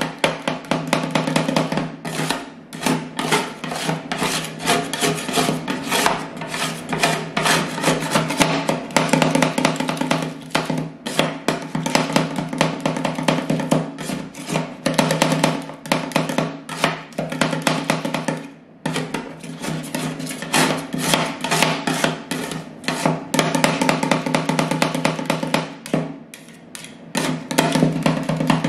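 Metal spatulas rapidly chopping and scraping a freezing avocado ice-cream mix on the steel cold plate of a rolled-ice-cream machine: quick, irregular clacks and scrapes. Background music plays throughout.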